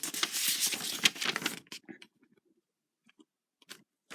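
Rustling and scraping with small plastic clicks, as action-figure parts and their packaging are handled. The rustle stops about a second and a half in, leaving a few faint scattered clicks.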